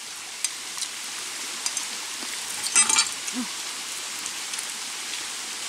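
Hands peeling and handling food make small clicks and rustles over a steady background hiss, with a louder crackling rustle about three seconds in.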